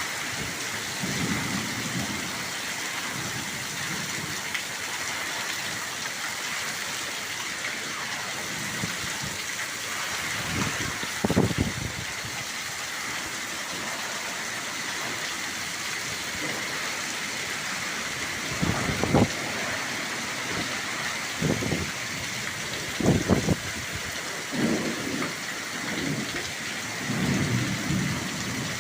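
Heavy rain falling in a thunderstorm, a steady hiss, with repeated short low rumbles and thuds rising above it, the loudest a little before the middle and about two-thirds of the way through.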